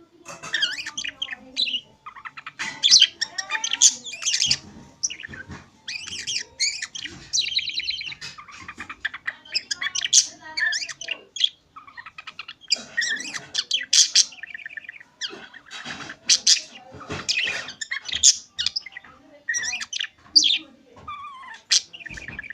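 A budgerigar (budgie) chattering on its own: a fast, continuous run of chirps, clicks and warbles, broken by short pauses.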